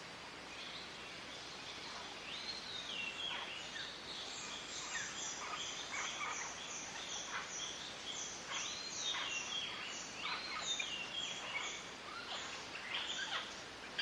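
Green parrots calling in the wild, a run of squawks that arch up and drop in pitch, one after another. Over them a quick series of short high notes repeats about three times a second from about five seconds in until near the end.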